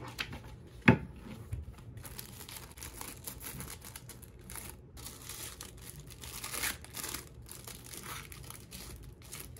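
Clear plastic bag crinkling and paper cash envelopes rustling as they are handled and slid back into the bag, with one sharp click about a second in.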